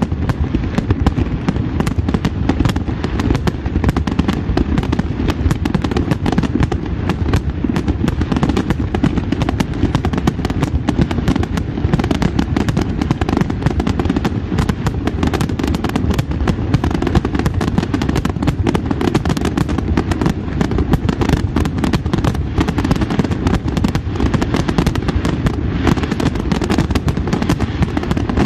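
Fireworks display at full intensity: a dense, continuous barrage of aerial shells bursting, many overlapping bangs and pops every second with no pause.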